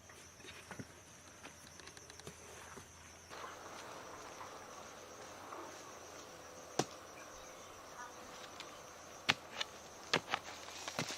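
Insects trilling steadily at one high pitch, with a few sharp clicks or knocks in the second half.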